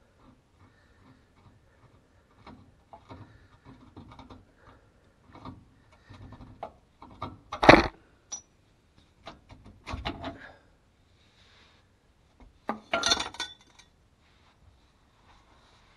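Metal tools and suspension hardware clinking and knocking during shock absorber work. Light taps and clicks are scattered throughout, with a sharp metal clank about halfway through, another knock a couple of seconds later, and a short clatter of clinks near the end.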